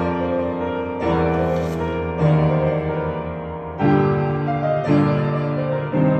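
Upright piano being played: a slow run of full chords, a new one struck every second or so and left to sustain.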